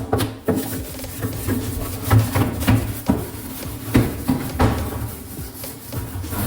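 Irregular knocks and clatter of hard objects being handled, coming roughly every half second.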